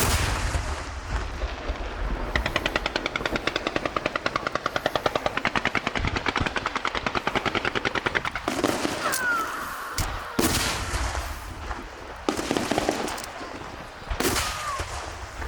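Aerial fireworks going off: a rapid run of sharp pops, several a second, followed by a few heavier single bangs about ten and fourteen seconds in.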